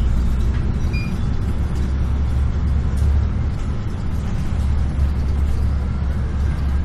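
City bus engine running with a steady low drone and road rumble, heard from inside the bus's cabin as it drives through traffic.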